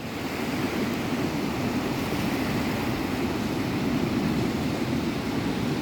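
Steady rushing noise of wind and sea surf, with no distinct event standing out.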